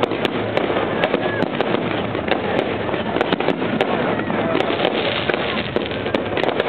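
Fireworks display going off continuously, a dense crackling with many sharp pops and bangs overlapping, with crowd voices underneath.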